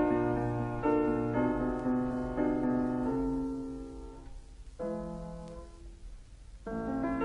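Background piano music: slow chords that ring and fade, thinning out in the second half, with a new chord about two-thirds in and another near the end.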